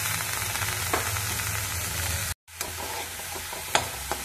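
Chopped onion sizzling in hot oil in a kadhai, the frying sound dropping out for a moment about halfway through. Near the end, a perforated metal spatula stirs the onion and clicks twice against the pan.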